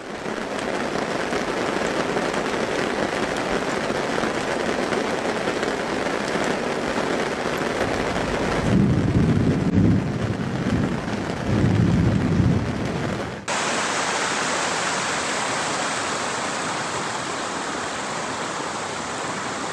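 Heavy rain falling steadily, with two low rumbles in the middle lasting a second or so each. About two-thirds through, the rain's sound changes abruptly to a brighter, thinner hiss.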